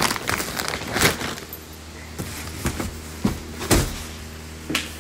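Handling noise from an embroidered lehenga being moved on its wooden hanger: rustling cloth with scattered clicks and knocks, the loudest about a second in and just before four seconds in, over a steady low hum.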